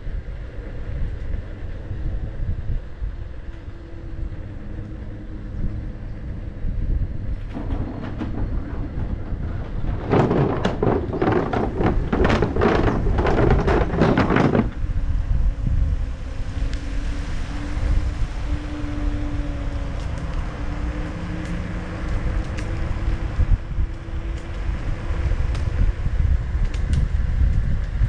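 Wind buffeting the microphone with a steady low rumble while moving along with an electric unicycle, under a faint hum that slowly drifts in pitch. From about seven seconds in, for roughly seven seconds, a louder dense crackling rattle sits over it.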